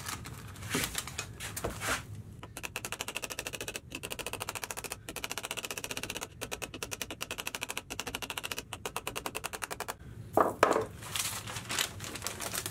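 Hand hammer tapping rapidly, about seven light blows a second, on a sheet-steel patch clamped in a wooden jig, dishing a stiffening rib into the metal. A few scattered knocks come before the run of taps, and a couple of louder knocks near the end.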